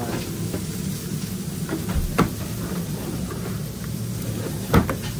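Stainless steel under-counter refrigerator drawer pulled open and its tray of sauce cups handled, with two sharp knocks, one about two seconds in and a louder one near the end. A steady kitchen hum runs underneath.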